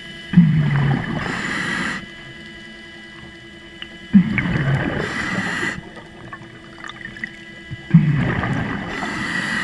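Scuba diver breathing out through a regulator underwater: three rushes of exhaled bubbles, about four seconds apart, each starting with a short low sliding groan from the regulator. A faint steady whine from the diver propulsion scooter's motor runs underneath.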